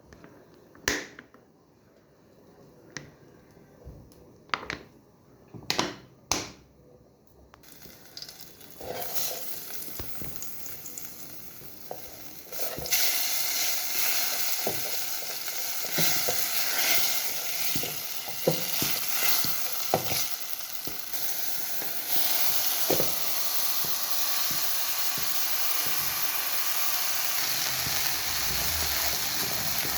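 A few separate kitchen knocks, then food sizzling in a hot frying pan, while a utensil knocks against the pan as the food is stirred. The sizzle starts about a quarter of the way in, gets louder twice and then runs on steadily.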